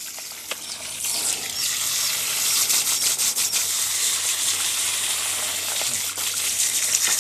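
Water from a garden hose streaming onto a clump of plant roots and splashing onto wet, muddy ground: a steady rushing splash, a bit louder from about a second in. The roots are being rinsed clean of soil to save a rotting dok khao phansa (Globba) plant.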